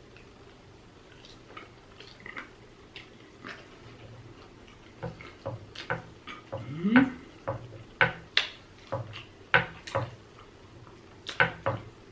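Close-up wet mouth sounds of eating animal style waffle fries: chewing with lip smacks and sharp wet clicks. They are faint at first and grow louder and more frequent from about five seconds in. A brief rising vocal sound comes about seven seconds in.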